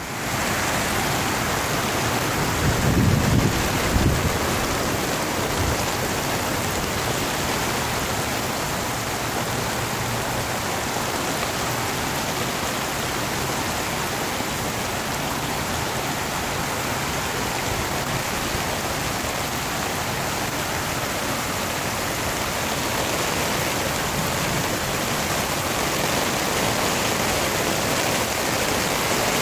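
Heavy rain falling steadily on an umbrella overhead, with floodwater running along the street, a steady rushing hiss. A brief low rumble about three seconds in.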